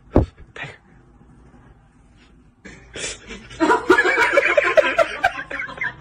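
A person laughing in quick, breathy snickers, starting about three and a half seconds in, after a single knock at the very start.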